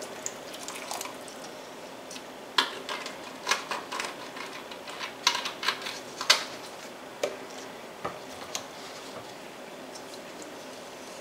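Wooden spoon stirring broth and mushrooms in a stainless steel skillet, with scattered knocks and scrapes of the spoon against the pan over a low steady hiss.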